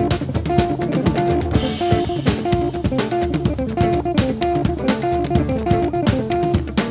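A live band playing: drum kit keeping a steady beat under a plucked guitar and bass, with a short repeating two-note riff, and a cymbal wash about two seconds in.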